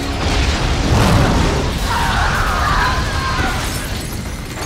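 An explosion blasts through a room: a loud, deep boom peaking about a second in, with flying debris and a long rumble after it.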